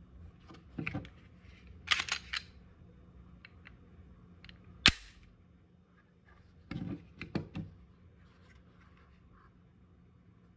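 Handling noise from a pistol and a hard plastic light-bearing holster on a plywood bench: scattered clicks and rattles, with one sharp click about five seconds in. A cluster of clicks follows near seven seconds as the pistol is worked into the holster.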